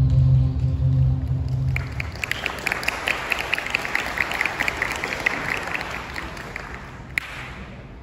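The last held low chord of the music dies away about two seconds in, then applause with many sharp claps takes over and fades out toward the end.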